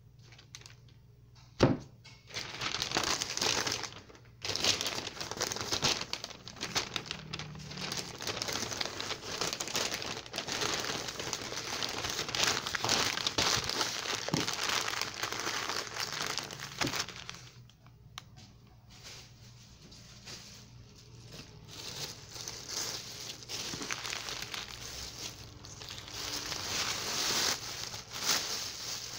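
Newspaper rustling and crinkling as a head of cabbage is wrapped in it, with a sharp knock about two seconds in. Near the end a thin plastic bag rustles as the wrapped parcel goes into it.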